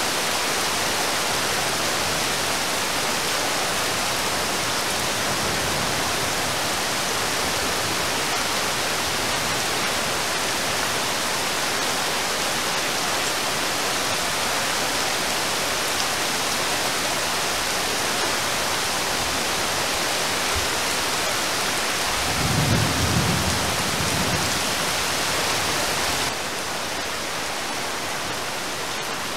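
Steady heavy rain falling on water, with a low rumble of thunder about three-quarters of the way through. Near the end the rain turns slightly quieter and duller.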